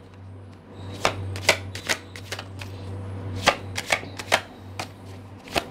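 Tarot cards being shuffled by hand: a run of sharp card snaps and taps, roughly two a second and unevenly spaced, over a low steady hum.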